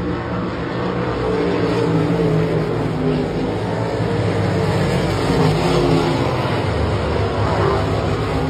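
IMCA RaceSaver sprint cars' V8 engines running on a dirt oval, heard from the grandstand as a continuous engine sound whose pitch rises and falls as the cars go around.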